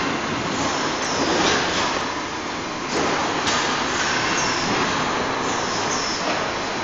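Automatic carton-filling packing line running, its gear motors and chain and roller conveyors giving a steady mechanical noise, with a few sharper knocks.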